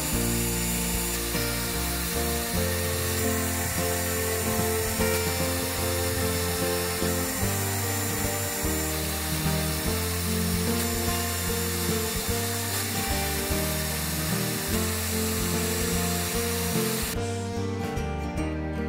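A spinning wire brush wheel scrubbing rust off small metal grinder parts, with background music throughout. The brushing stops about seventeen seconds in, leaving only the music.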